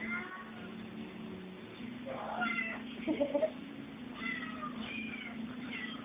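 A cat meowing about five times in short calls that rise and fall in pitch, over a steady low hum. A quick cluster of short sharp sounds comes about three seconds in.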